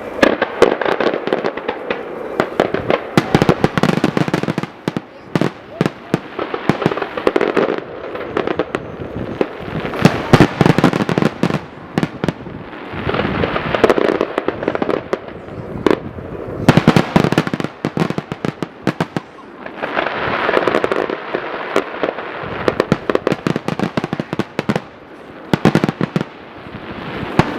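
Fireworks display with aerial shells bursting and crackling in quick succession, several bangs a second throughout, the dense rumble of the volleys swelling and easing every few seconds.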